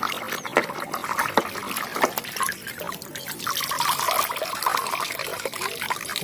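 Water trickling and splashing as toy vehicles are washed clean, with frequent small clicks and knocks.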